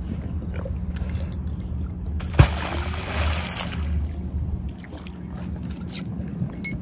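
A magnet-fishing magnet on a rope lands in the water about two and a half seconds in: a sharp smack followed by a splash lasting about a second and a half. A steady low hum runs underneath.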